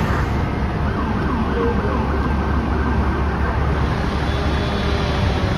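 Fire engine siren wailing in repeated pitch glides for a couple of seconds, over a steady low engine rumble and street noise.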